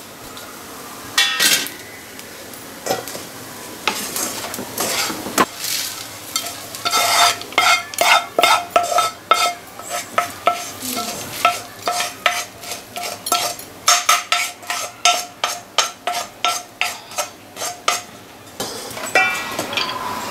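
Dry-roasted spice seeds sliding and rattling out of a non-stick kadai onto a steel plate, then a wooden spatula scraping and knocking the last seeds out in quick strokes, about two a second, with a metallic ring on each stroke, for roughly the second half.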